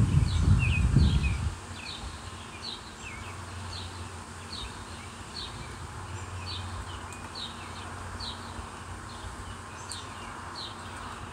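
A bird chirping over and over, short high notes that drop in pitch, one or two a second, over a steady background hiss. Wind rumbles on the microphone for the first second and a half.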